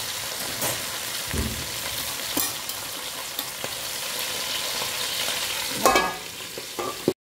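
Eel and greens sizzling steadily in oil in an aluminium wok. About six seconds in, the metal lid is set down on the wok with a clank, and the sizzle then cuts off suddenly.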